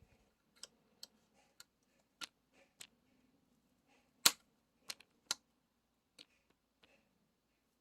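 Scattered small sharp clicks and taps of hand tools and screws against a graphics card during disassembly, about ten at irregular intervals, the loudest about four seconds in.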